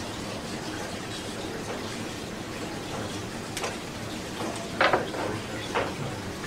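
Knife work on a pig carcass at a cutting board: a few short knocks and scrapes, the loudest about five seconds in, over a steady background hiss.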